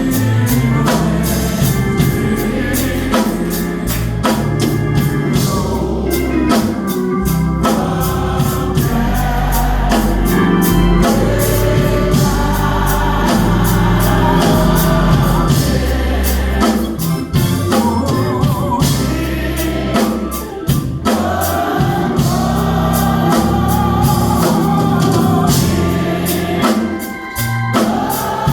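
Gospel singing with organ accompaniment.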